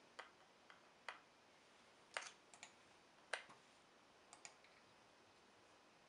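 Faint, irregular clicks of a small screwdriver turning a screw out of the hard-drive bay bracket on a late 2008 MacBook, roughly one tick a second, the loudest a little past two and three seconds in.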